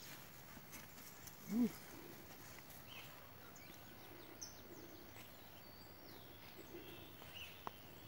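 Faint rural outdoor ambience with a few scattered faint bird chirps. A short low voiced sound rises and falls about one and a half seconds in, and a single sharp click comes near the end.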